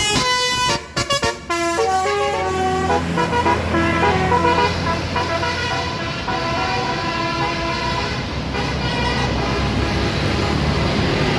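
Bus's Basuri telolet horn playing a tune of stepped notes, rapid choppy blasts in the first second and a half and then longer held notes, with the bus engine running underneath from about two seconds in.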